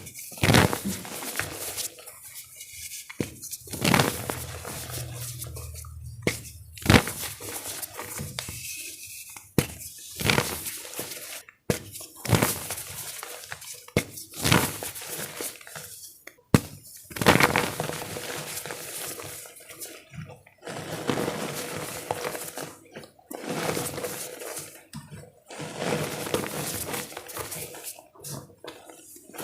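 Wet gym chalk being crushed: irregular sharp crunches, a few a second at most, with soft crumbling and squishing between them.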